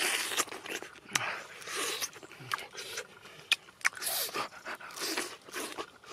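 Person eating noisily: irregular chewing and slurping with sharp mouth clicks and breathy bursts between bites.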